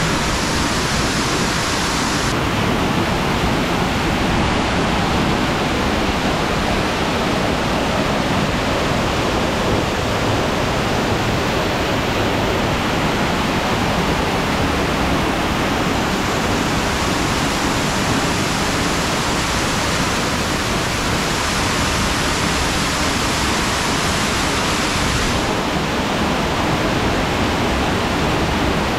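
Waterfall pouring onto rock in a narrow grotto, a loud, steady rush of water. Its hiss turns duller about two seconds in and brighter again about halfway through.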